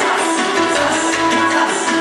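Live band playing instrumental manele, Romanian wedding music: held melody notes over a steady hand-drum beat.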